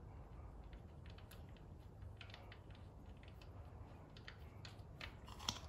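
Faint, irregular light clicks and taps from small objects being handled, with one sharper click near the end.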